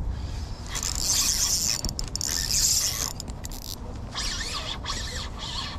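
Fishing reel being worked against a hooked fish: a mechanical whirring and ticking in two spells, starting about a second in and again shortly before the end, over a low rumble.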